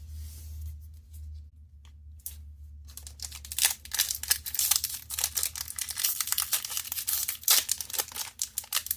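Foil wrapper of a Magic: The Gathering booster pack being torn open and crinkled by hand, in a quick run of crackling tears starting about three seconds in, over a steady low hum.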